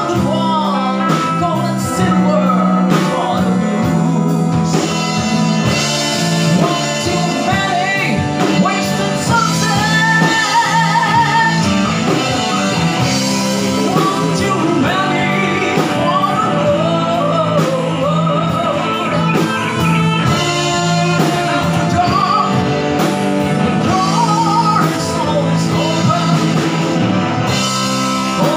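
Live rock band playing through a PA: a man singing into a microphone over electric guitars, keyboard and a drum kit.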